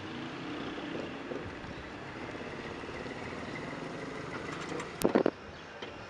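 A Hyundai sedan drives up and pulls in, its engine and tyres making a steady running noise. About five seconds in, a brief, loud sharp sound cuts across it.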